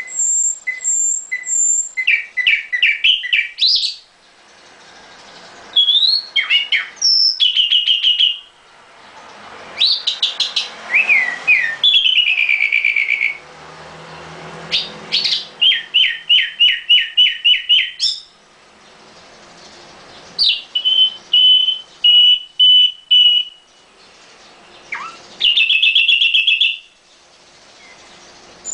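Nightingale singing: six loud phrases of rapidly repeated notes, sharp whistles and trills, each lasting one to three seconds and separated by short pauses.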